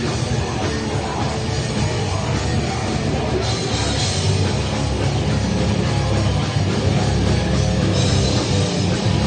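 A live grindcore band playing: distorted, dense heavy music, loud and continuous, that gets brighter and hissier in the highs twice, about three and a half seconds in and again near the end.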